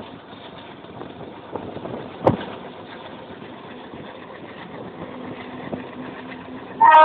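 Steady engine noise, like an idling train, with a single knock about two seconds in. Near the end a train horn suddenly sounds, loud and steady, with a full multi-tone chord.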